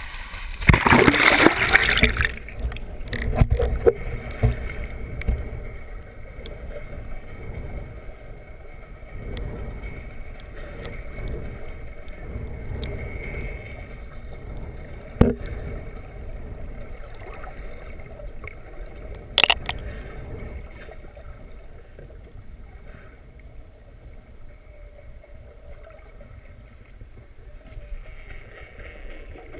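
A loud splash of sea water about a second in, then the muffled, gurgling rush of water heard underwater, with two sharp clicks partway through.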